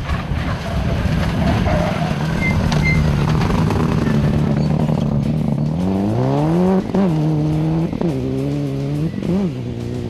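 Subaru Impreza rally car's flat-four engine running hard at a steady high note. About six seconds in, the revs climb and drop sharply three or four times as the car powers through a gravel corner.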